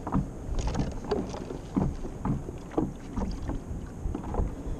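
Small waves slapping and gurgling against a kayak's hull, about twice a second, over a low rumble of wind on the microphone.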